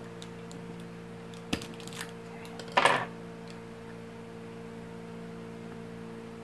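Small clicks and one short, crackly crunch about three seconds in as a fridge-cold chocolate is handled and a piece taken to be eaten, over a steady low hum.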